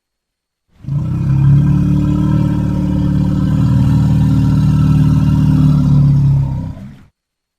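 Animated-film sound effect: a loud, steady, low rumble with a fast flutter in it, starting about a second in and fading out quickly after about six seconds.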